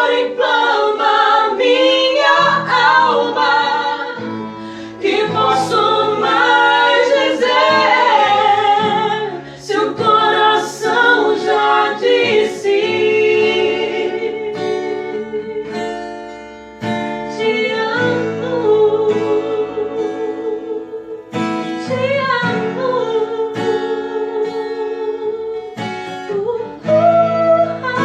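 Christian worship song: vocals with acoustic guitar accompaniment.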